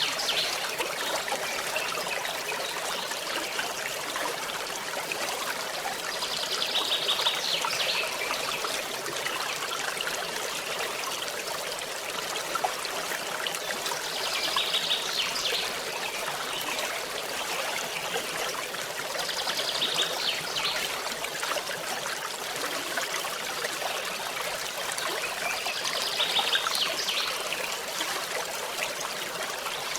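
Forest stream trickling and running over stones in a steady, even wash. A short high trill recurs about every six seconds.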